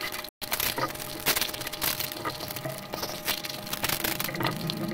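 Crisp, hollow pani puri shells crunching and cracking in a string of sharp clicks, close to the microphone. The sound cuts out for a split second just after the start.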